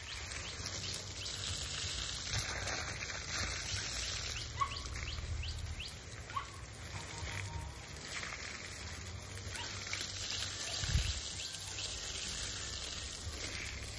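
Outdoor rural ambience: a steady hiss with a few short bird chirps scattered through it, and one dull thump about eleven seconds in.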